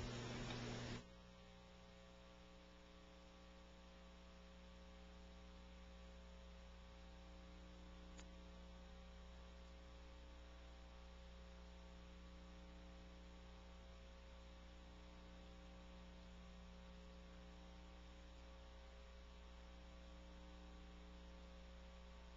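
Near silence with a faint, steady mains hum. A low background sound cuts off about a second in.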